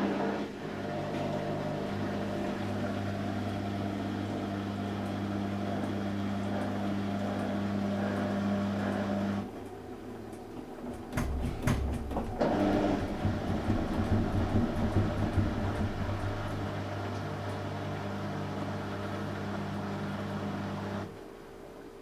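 Panasonic NA-168VG2 front-loading washing machine's inverter drum motor starting with a click and running with a steady low hum for about nine seconds, then stopping; after a few clicks it starts again, louder and more uneven, and stops again near the end. These are repeated attempts to get the drum into its spin that keep failing, with only one towel loaded.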